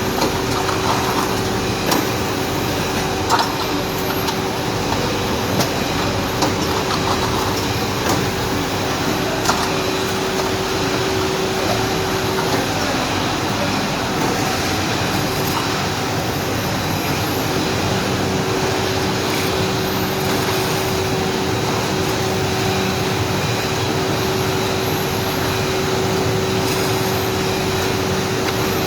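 Automatic shrink-wrapping machine running: a steady mechanical hum with a constant held tone, and a few sharp clicks in the first ten seconds or so.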